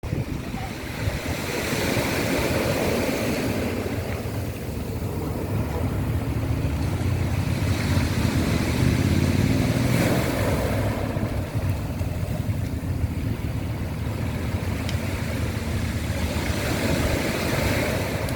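Sea waves washing up a pebble beach and drawing back, the surf swelling and ebbing about three times, with a hissing rattle of pebbles at the peaks over a steady low rumble.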